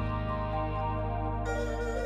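Background music: sustained synth-like chords over a steady low bass, changing chord about one and a half seconds in.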